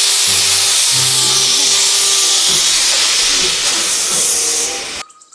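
Loud, steady steam-locomotive hiss sound effect over light background music, cutting off abruptly about five seconds in.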